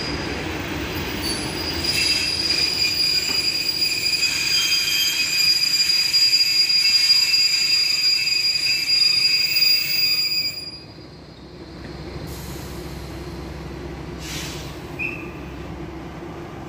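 Czech passenger train coaches braking to a stop, the brakes squealing in high steady tones from about two seconds in, cutting off sharply about eleven seconds in as the train halts. A low steady hum of the standing train remains.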